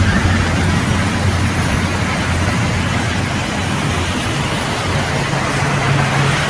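Steady din of sawmill band saws running: a low motor hum under a continuous hiss of blades and wood. The hum's pitch steps up a little about five seconds in.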